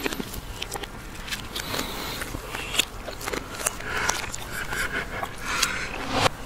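Crispy fried chicken skin crackling and crunching as it is torn and chewed, a run of sharp crackles, with stifled laughter in the second half.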